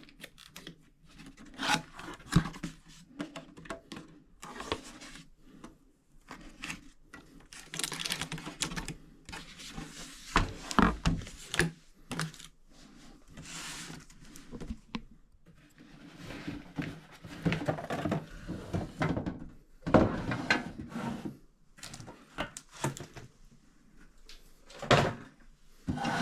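A small tool box being unwrapped from its packaging: irregular rustling and crinkling of the wrapping, with scattered knocks and thunks as the box is handled.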